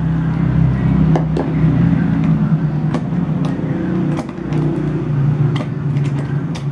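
A steady low motor drone, with scattered sharp clicks and taps as a small cardboard lens box is handled and its lid worked open.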